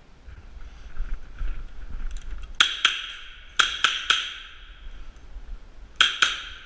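MP9 airsoft gun firing in short bursts, each shot a sharp crack with a short ringing tail. Two shots come about two and a half seconds in, three about a second later, and two more near the end, each a quarter second apart.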